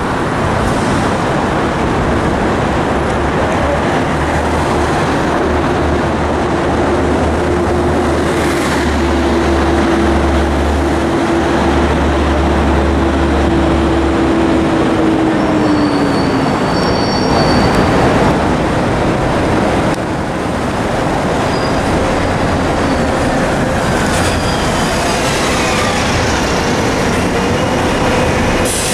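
Loud, steady city street traffic noise. A heavy vehicle's engine hum drops in pitch about halfway through, and high thin squeals come near the end.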